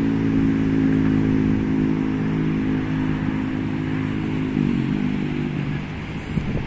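A motor vehicle's engine running as it passes on the road: a steady hum that drops in pitch about four and a half seconds in, then fades away.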